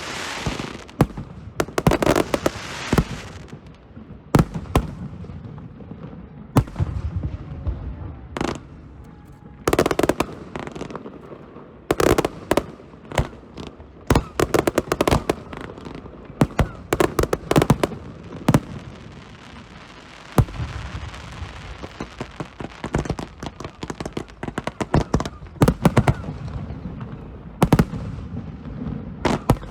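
Aerial fireworks going off in quick succession: a long string of sharp bangs and crackling bursts, with booms that echo and rumble after them.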